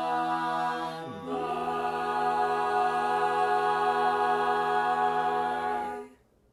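Mixed a cappella group of men and women singing the song's sustained final chords, with no instruments. About a second in the harmony shifts to a new chord as the bass voice slides down, and the group holds it until a clean release about six seconds in.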